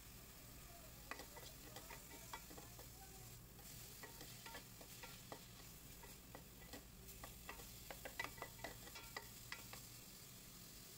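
Wooden spoon stirring and scraping cut okra and spice powder around a metal pot: irregular light taps and scrapes, starting about a second in and stopping shortly before the end.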